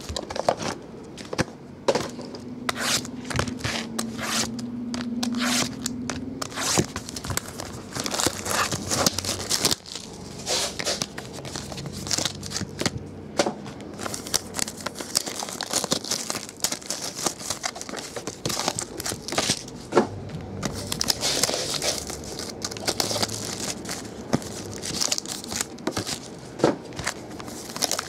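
Trading card pack wrappers and plastic sleeves being torn open and crinkled by hand, with frequent small taps and clicks as the cards are handled.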